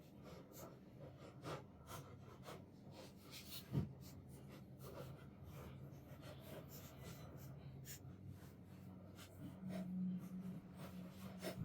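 Faint clicks, taps and scraping of a wall timer switch and its wires being handled and worked with small tools, over a low steady hum; one louder knock about four seconds in.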